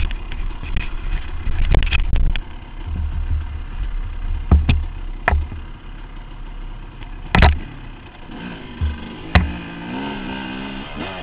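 Off-road dirt bike engine running as the bike is ridden over rough trail, with several sharp knocks from the bike jolting over bumps. Near the end the engine note rises and falls as the throttle is worked.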